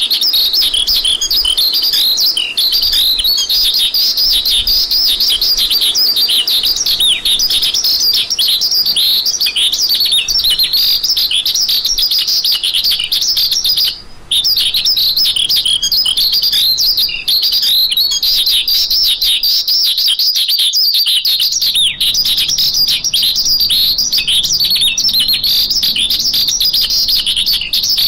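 Horsfield's bush lark (branjangan) singing a fast, unbroken stream of high chirps and trills, with one brief pause about fourteen seconds in.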